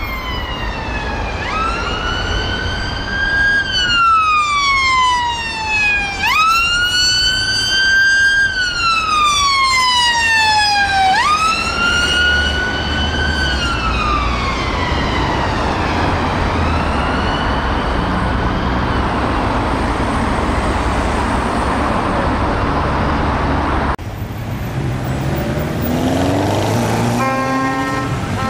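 Ambulance siren on a wail: each cycle sweeps up quickly, then falls slowly, repeating about every five seconds. The siren fades out about halfway through, leaving engine and road noise. Near the end a motorcycle engine revs.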